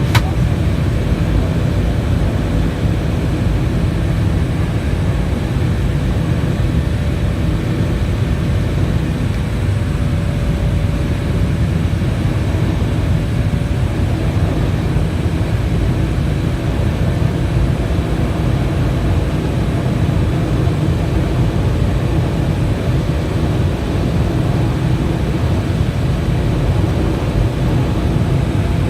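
Airliner's jet engines and rushing air during takeoff, a steady low rumble with a faint hum, heard from inside the cabin.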